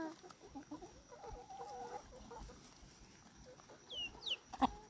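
Backyard chickens clucking softly in low, wavering calls, with two short high falling chirps near the end, then a single short, sharp chicken sneeze.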